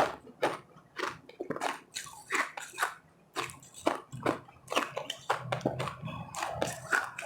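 Ice being bitten and chewed close to the microphone: a string of irregular crisp crunches, about three a second.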